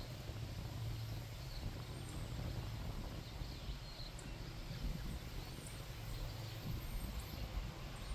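Outdoor ambience: a low steady hum with scattered faint, high bird chirps.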